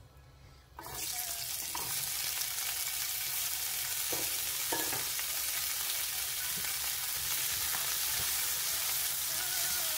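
Cut asparagus dropped into hot oil in a nonstick frying pan: sizzling starts suddenly about a second in and goes on steadily as it is stir-fried.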